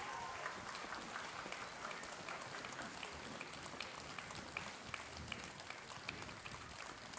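Audience applauding after the performance, with many separate hand claps.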